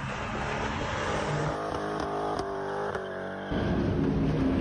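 Car engines from driving clips: an engine running with shifting pitch, then, after an abrupt cut about three and a half seconds in, a louder engine whose pitch slowly falls.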